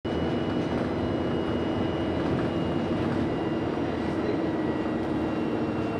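Steady drone and rumble inside a bus, with faint high whines held steady above it.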